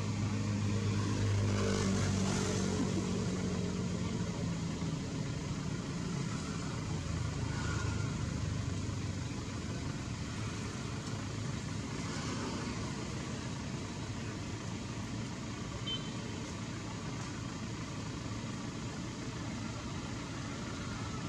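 A motor vehicle's engine hum, falling slightly in pitch and fading over the first few seconds, then a steady noisy background.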